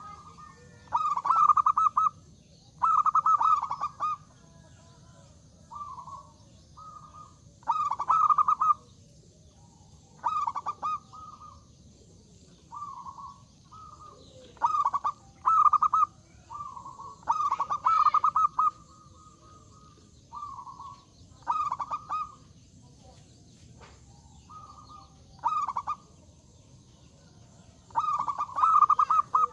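Zebra dove (perkutut) cooing over and over in a full voice: short phrases of quick, rolling notes, each about a second long, with pauses of a second or two between them and some phrases louder than others.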